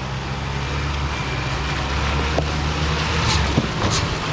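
Four-wheel-drive engine running steadily under load off-road, growing a little louder, with a few sharp cracks near the end.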